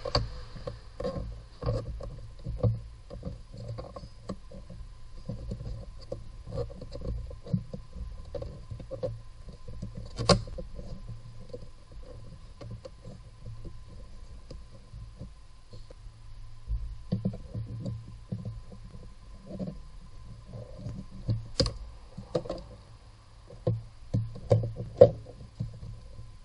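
Hands working plastic trim and a rubber seal in a car's engine bay: irregular rubbing, scraping and light plastic knocks, with a few sharp clicks, one about ten seconds in and a couple near the end.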